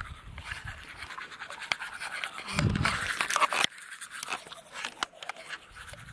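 Manual toothbrush scrubbing teeth close to the microphone: rapid, scratchy brushing strokes. About halfway through it grows louder for roughly a second, with a low rumble.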